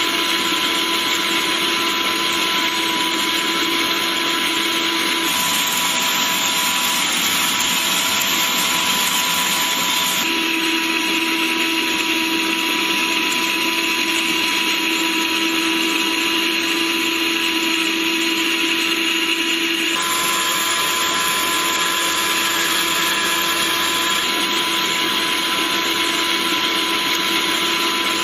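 LY-42 2200 W electric meat grinder running, a steady motor drone with a held whine. Its tone shifts abruptly about five, ten and twenty seconds in.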